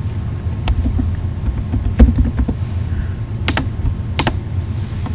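Computer keyboard keys and a mouse button clicking: a handful of separate clicks spread out as a password is typed and the login is clicked, over a steady low hum.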